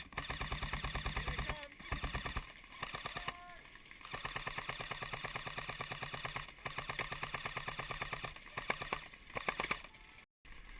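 Airsoft electric rifles (AEGs) firing on full auto: several long bursts of rapid, evenly spaced shots, with short pauses between them.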